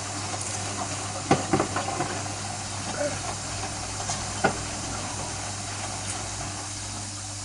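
Hotpoint Aquarius WMF520P washing machine running with a steady hum and hiss, broken by a few short sharp knocks about a second and a half in and again at about four and a half seconds. The machine has a broken drum spider.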